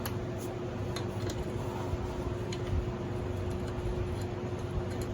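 Light, scattered metallic clicks and taps as bolts are slid by hand into the holes of a scooter's variator cover, over a steady background hum.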